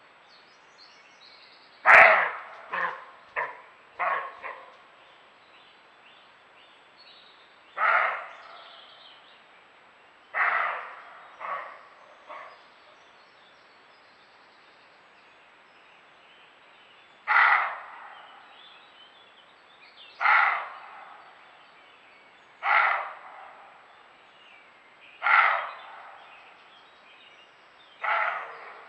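European roe deer barking: about fourteen hoarse, dry barks. A quick run of five comes in the first few seconds, then single barks or short pairs follow every two to three seconds.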